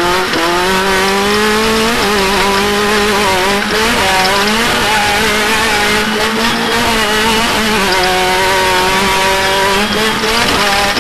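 Off-road race car engine running hard at high revs, its pitch holding high with small dips and rises as the throttle changes.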